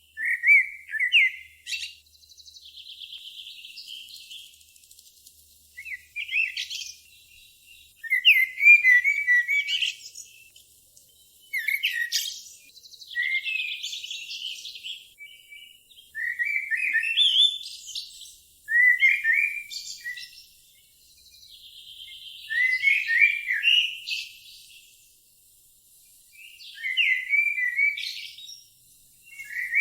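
A pet bird singing in short repeated phrases, each a quick run of chirps ending in a buzzy trill, a new phrase every three seconds or so.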